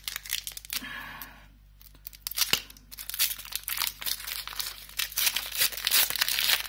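Foil Pokémon booster-pack wrapper being torn open and crinkled by hand. It is quiet at first, then from about two seconds in comes a quick run of sharp crackles as the foil rips and crumples.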